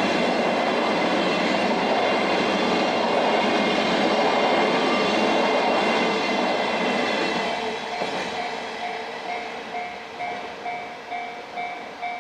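Empty freight train of hopper wagons rolling past on the rails: a loud steady rush that fades after about seven seconds. Then a level-crossing alarm rings on, dinging evenly about one and a half times a second.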